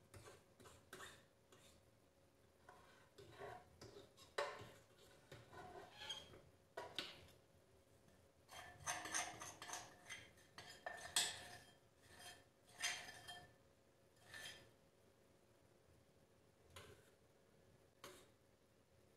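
A spoon scraping and tapping against a glass mixing bowl and a blender pitcher as a thick cottage cheese mixture is spooned in, in faint irregular clinks and scrapes that come thickest in the middle.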